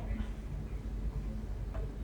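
Room tone: a steady low rumble with a faint hum, and one faint click near the end.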